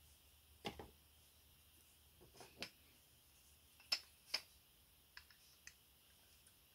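Parts of an antique cast-iron meat grinder clicking and knocking lightly as they are handled and fitted together: a series of short, sharp taps, the loudest pair about four seconds in.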